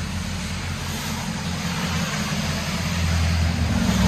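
RAM 2500 Power Wagon's 5.7-litre HEMI V8 running slowly through a dual exhaust with a Black Widow Venom muffler, a deep rumble that grows louder near the end as the truck is backed up, over a steady hiss of pouring rain.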